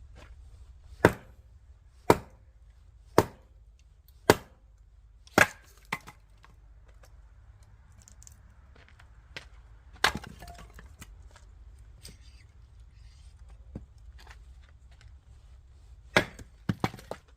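Oak firewood being chopped: five sharp strikes about a second apart, a pause, a single strike, then a quick run of three or four strikes near the end.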